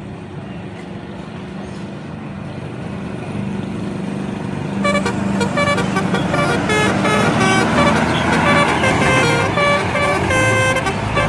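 A bus engine running and growing steadily louder. About five seconds in, the bus's telolet horn, a multi-trumpet musical air horn, starts playing a quick tune of short notes stepping up and down, and it keeps going.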